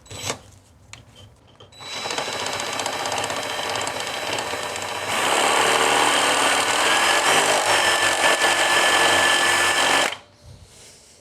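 A power drill runs at high speed, boring a bit into the metal of an enclosure, after a few light clicks. It starts about two seconds in, grows louder about halfway through as the bit bites into the sturdy metal, and stops abruptly near the end.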